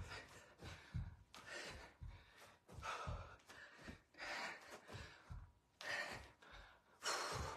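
Hard breathing, gasped in and blown out, from a person doing jumping lunges, with a soft thud about once a second as the feet land on a carpeted floor.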